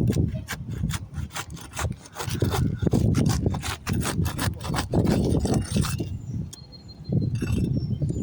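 Asphalt roof shingles being pried up and torn loose, a run of rough scraping and sharp clicks and cracks, with bursts of low rumble on the microphone.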